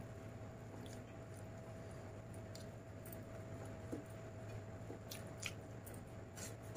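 Fingers squishing and mixing rice with chicken curry on a steel plate, with a few light clicks against the plate. A faint steady hum runs underneath.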